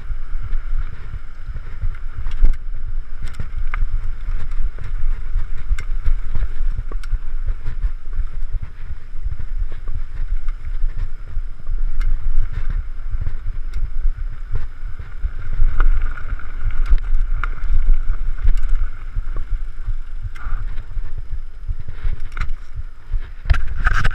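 Mountain bike riding fast along a dirt forest singletrack, with wind buffeting the microphone as a steady rumble. Scattered sharp clicks and rattles come from the bike over the rough trail.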